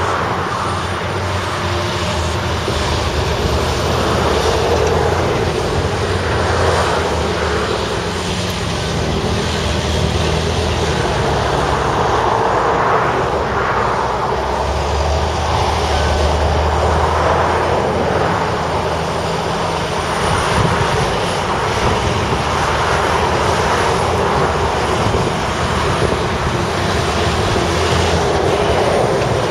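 Heavy diesel engines of Volvo articulated dump trucks and a Volvo excavator working together in a steady, loud din, with the low engine note swelling and easing as the machines pull through mud and load.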